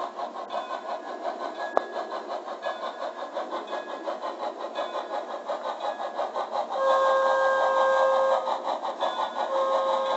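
Model steam locomotive's sound running: steady chuffing at about four beats a second, with a sharp click about two seconds in. A multi-toned steam whistle sounds twice, a blast of about a second and a half from about seven seconds in and a second one near the end, louder than the chuffing.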